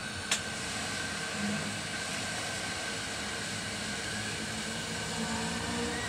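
Steady airy hiss of a fan or blower with a faint constant whine, and a single sharp click about a third of a second in.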